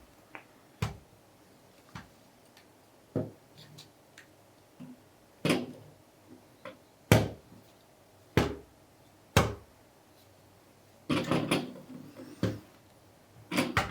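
LEGO plastic pieces being handled and pressed together: scattered sharp clicks and knocks about every second or two, with a quick cluster of them about eleven seconds in, as a piece is tried in place without going in.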